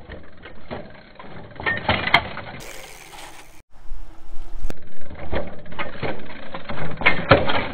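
Kid's Trek Precaliber 20-inch mountain bike rolling past on pavement, the freewheel on its rear hub clicking as it coasts, along with tyre noise. The sound drops out for an instant a little past halfway, then resumes.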